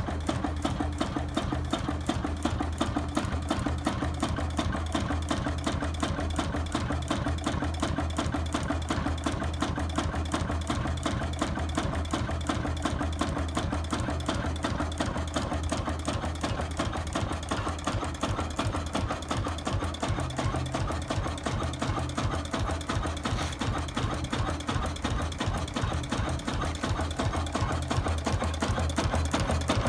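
1951 Ruston & Hornsby 1HR single-cylinder diesel stationary engine running steadily at about 325 rpm, slow for an engine rated at 550 rpm, with an even rhythmic beat.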